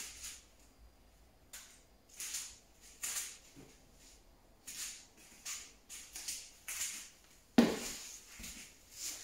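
A person's short, hissy breaths, roughly one a second, while straining in a forearm backbend on a foam exercise mat, with a louder thump about three-quarters of the way through as her body comes down onto the mat.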